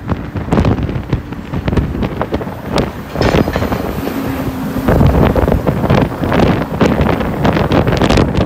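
Wind buffeting the microphone in gusts on the open upper deck of a moving bus, with the rumble of the bus and traffic underneath.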